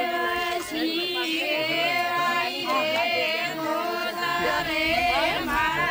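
A group of women singing a wedding song together, several voices overlapping in a steady, wavering chant.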